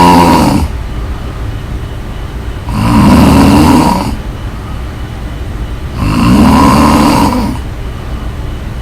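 Loud snoring in a slow rhythm: a rough, rattling snore about every three seconds, each lasting about a second and a half, with quieter breathing between.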